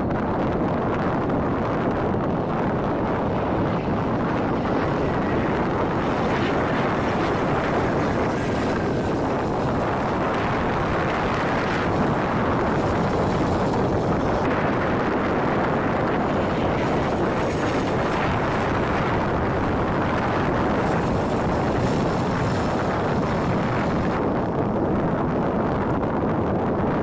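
A-10 Thunderbolt II jets taking off, their twin General Electric TF34 turbofans at takeoff power making a loud, steady, even noise, mixed with wind on the microphone.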